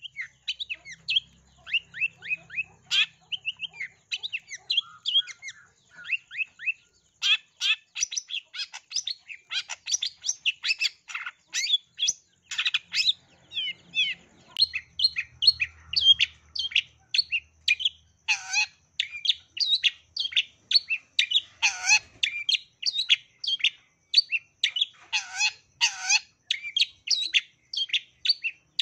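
Long-tailed shrike singing a fast, unbroken run of short sharp chirps and whistles, several notes a second, its song packed with mimicked calls, among them the chatter of tree sparrows. It grows denser and louder a few seconds in, with some notes sliding steeply downward.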